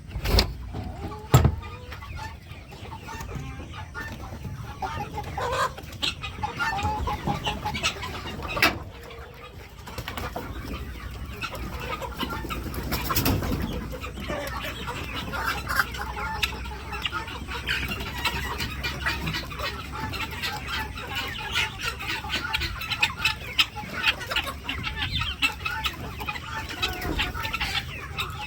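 Chickens clucking as they are let out of their coop, the clucking getting busier and denser in the second half. A few sharp knocks sound near the start.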